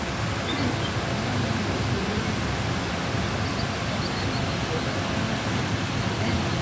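Steady running noise of a passenger train heard from on board: a low rumble of the wheels on the rails mixed with rushing air.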